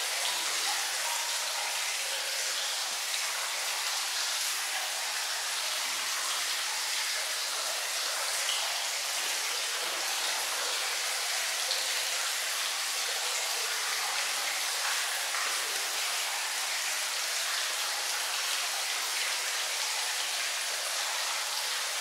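Steady rush of running, splashing water, an even hiss with no breaks.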